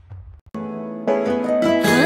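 A fading low rumble from the intro ends, and after a brief gap background music starts a little past halfway, with new notes joining one after another near the end.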